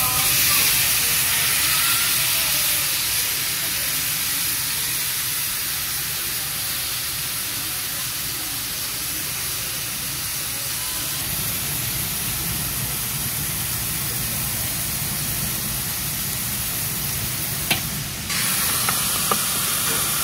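Cabbage and meat stir-frying in a hot wok: a steady loud sizzle and hiss of steam. Near the end there is a single sharp click, then the sound changes abruptly to a brighter sizzle.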